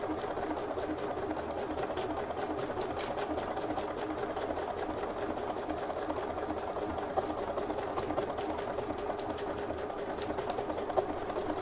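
Usha Janome Dream Maker 120 computerized sewing machine running at speed with its foot controller pressed down hard, sewing a wide decorative embroidery stitch: a steady motor sound with fast, even needle ticking.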